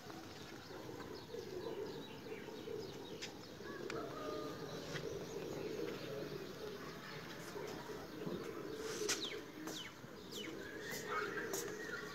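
Domestic pigeons cooing steadily in a rooftop loft, with a few sharp, quick chirps of small birds coming in about nine seconds in.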